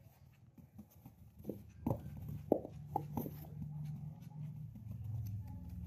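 Baby macaques scuffling and scampering on a cloth mat, with a few soft taps and thumps between about one and a half and three seconds in. A low hum runs underneath and grows louder near the end.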